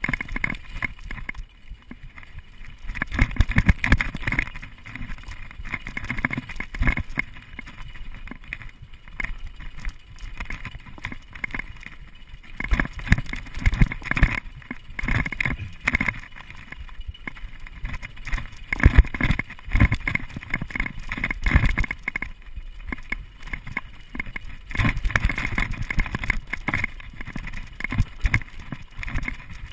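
Mountain bike riding fast over a rough dirt trail: a constant, irregular clatter and knocking as the bike and camera jolt over roots and bumps, with tyre rumble underneath.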